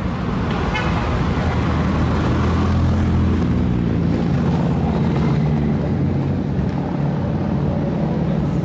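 A group of large touring motorcycles riding past close by. The engines hum low and steady, growing louder a second or two in and easing off after about six seconds as the bikes go by.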